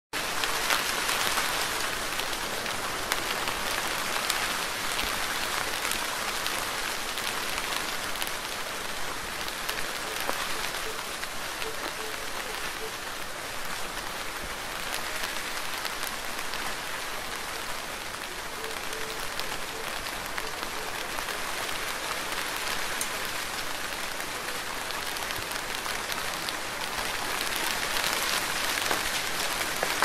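Steady rain falling: a dense, even hiss of drops with individual drops ticking through it, a little heavier near the start and the end.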